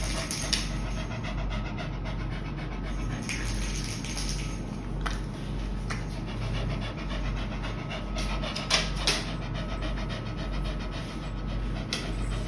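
A dog panting steadily, with two brief louder noises close together a little before the last third.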